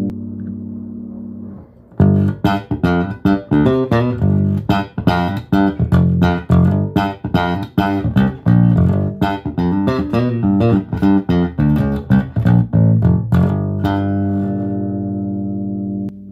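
Cort Action PJ electric bass played clean through a Fender Rumble 25 combo amp, with no effects. A held note dies away, then a fast run of plucked notes lasts about twelve seconds, and another note rings out near the end.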